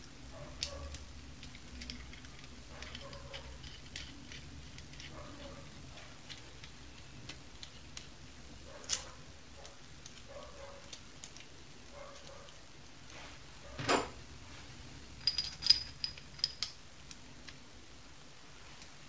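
Steel lathe-dog parts handled by hand, clicking and clinking against each other as they are fitted together, with scattered sharp metal knocks, the loudest about 14 seconds in and a quick cluster a little later.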